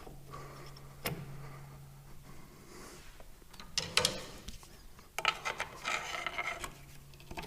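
Clinks, knocks and scraping of hand work on metal tractor parts: a single knock about a second in, a sharp clatter about four seconds in, then a stretch of rubbing and scraping from about five seconds. A low steady hum comes and goes underneath.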